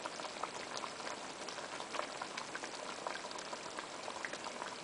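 A pot of thick catfish curry sauce bubbling steadily, with many small irregular pops.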